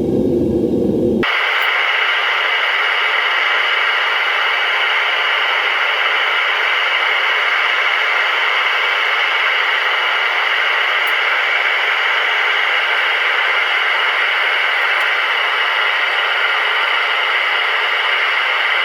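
Steady, even hiss with no low rumble in it, starting abruptly about a second in after a brief low rumble.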